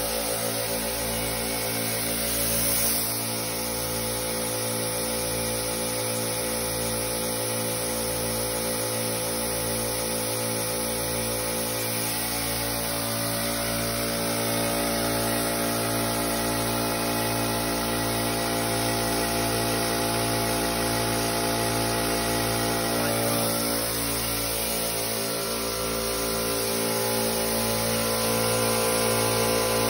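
Two 2.5 HP, 10-gallon air compressors running together to feed an HVLP paint gun: a steady mechanical hum with a slow, regular pulsing underneath.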